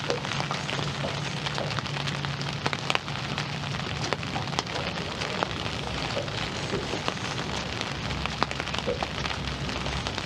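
Dense crackling noise full of small ticks, with a low hum under it that stops about four and a half seconds in.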